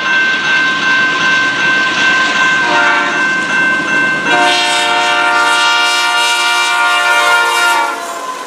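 Air horn of an approaching CP freight locomotive, a GE AC4400CW, sounding for a road crossing. It blows a steady multi-note chord that steps louder about four seconds in and cuts off about eight seconds in as the locomotives reach the crossing.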